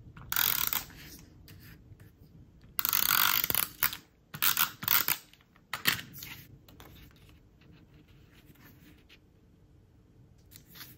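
Adhesive tape runner drawn across cardstock in a few short strokes, the longest about three seconds in, followed by a click as it is set down and then quieter paper handling.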